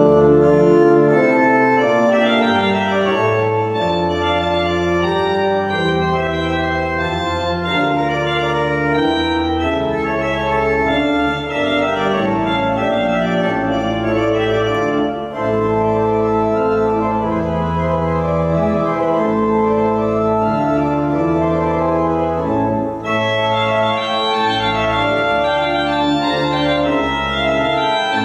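Church organ playing a postlude: full sustained chords over deep bass notes, the harmony changing about once a second, with a few brief breaks between phrases.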